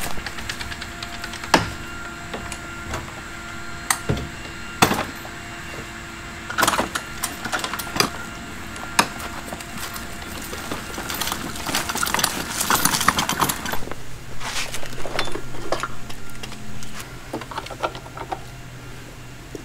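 Scattered clicks, knocks and metallic rattles of equipment being handled: a shed door opened and a gas pressure washer wheeled out with its coiled hose, with a denser clatter just before the middle. In the last part, the hose's fitting clicks against the pressure washer while a steady low hum runs underneath.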